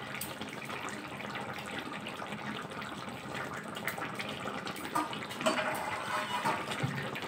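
Fish curry simmering in a kadai: a steady bubbling hiss, with a few light scrapes and taps of a spatula in the pan about midway.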